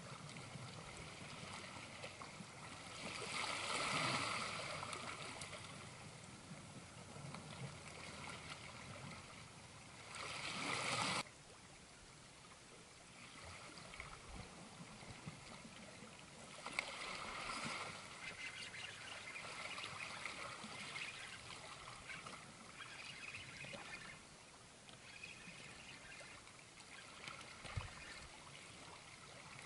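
Seawater washing and trickling over shoreline rocks, a steady faint wash that swells louder twice in the first dozen seconds and drops off abruptly about eleven seconds in.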